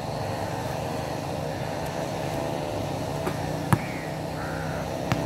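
A basketball strikes the hoop with a sharp bang about three and a half seconds in, then bounces once on the asphalt court a little over a second later, over a steady background hum.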